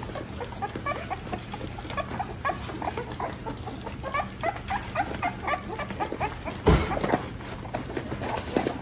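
A litter of three-week-old American Bully puppies squeaking and whimpering in many short, overlapping little cries as they crowd a tray of weaning mush. A single thump about seven seconds in.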